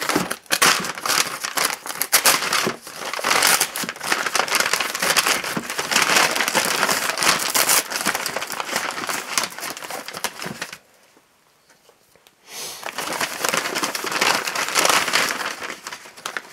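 A USPS mailer envelope being pulled open and crumpled by hand, a dense crinkling and crackling. It stops for about two seconds past the middle, then starts again and dies away near the end.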